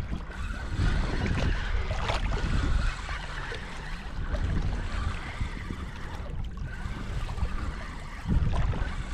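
Strong wind buffeting the microphone, a heavy low rumble that rises and falls in gusts, over the wash of choppy water.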